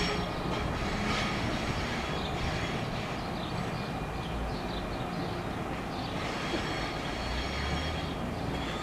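Amtrak Acela Express high-speed train running through on the rails: a steady rumble and rush of wheels and cars that eases slowly.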